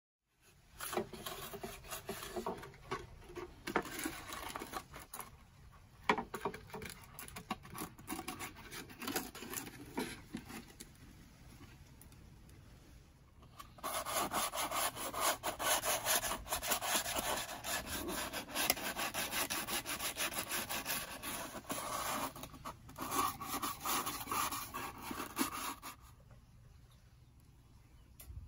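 Scraping and rubbing along the split seam of a Kamaka ukulele's wooden body, clearing out old glue: quick rasping strokes that grow much louder about halfway through and stop a couple of seconds before the end.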